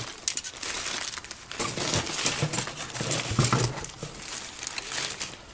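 Clear plastic bag crinkling as it is handled and pushed about, an uneven run of crackles.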